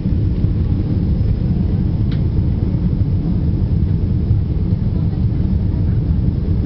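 Steady low cabin noise of a Boeing 777-200 airliner climbing after takeoff: engine and airflow noise heard from a passenger seat, even and unbroken.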